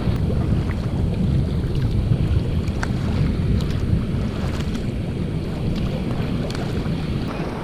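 Wind buffeting the microphone over open sea in a swell: a steady low rumble, with a few small splashes through it.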